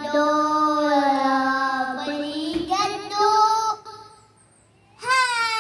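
A young boy singing long, drawn-out notes into a corded handheld microphone, amplified through a small portable Bluetooth speaker. One held phrase runs for nearly four seconds, then breaks off. After about a second's pause he starts a new note near the end.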